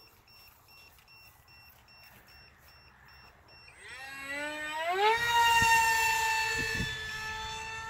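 A low-battery alarm beeps faintly about twice a second. Then the electric motor and fan of a radio-controlled jet model whine as it comes by low: the pitch climbs sharply about four seconds in, then holds high and steady.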